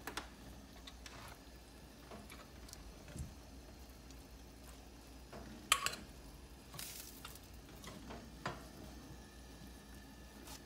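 Chicken wings sizzling faintly in a baking pan in a hot oven, with scattered ticks and pops and one sharper click about halfway through.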